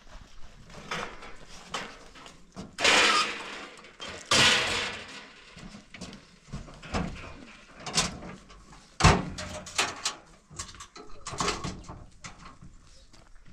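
Handling noises: two loud rustling scrapes, about three and four and a half seconds in, then scattered knocks, with a sharp knock about nine seconds in.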